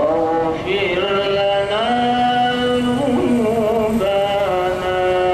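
Music with a single melodic line of long held notes that slide from one pitch to the next.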